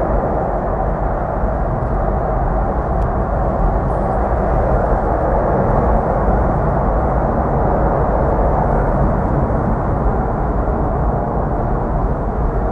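Steady highway driving noise, mostly tyres on the road and wind, from a car running alongside a semi-truck and trailer at speed; no distinct engine note stands out.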